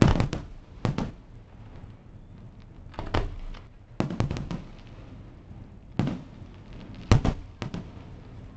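Aerial firework shells bursting one after another: sharp booms every second or so at irregular intervals, some in quick pairs, each trailing off in a short rumble.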